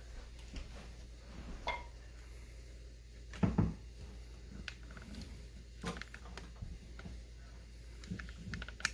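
Scattered light knocks and clicks of wood on wood as a sliding drawer partition's pins are pressed into holes in a hardwood workbench top, with a louder knock about three and a half seconds in.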